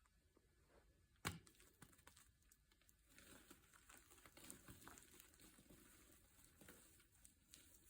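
Faint crinkling and rustling of something being handled, with one sharp tap about a second in.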